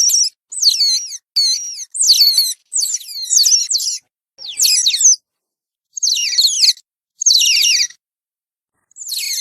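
Giant otters calling: repeated short bouts of high-pitched, overlapping squeals that slide downward in pitch, coming in quick succession at first and then with longer pauses.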